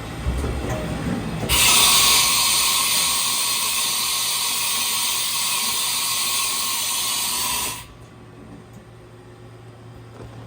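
Haas VF1 vertical machining center running with a steady hum. About a second and a half in, a loud, even hiss starts abruptly, lasts about six seconds and cuts off suddenly.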